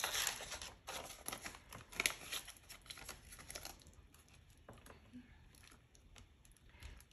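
Paper banknotes and cash envelopes rustling and crinkling as bills are slid into an envelope and the envelopes in a binder wallet are flipped, with small handling clicks. The rustling is busiest in the first two seconds and grows sparser after.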